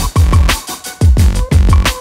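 Electronic background music with a fast, steady drum beat and deep bass kicks.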